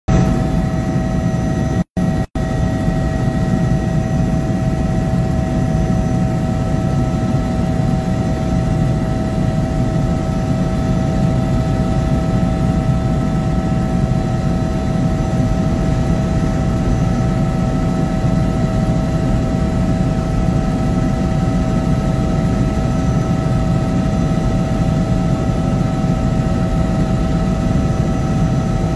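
Helicopter in flight heard from inside the cabin: a steady, loud engine and rotor drone with several constant whining tones over it. It cuts out twice, very briefly, about two seconds in.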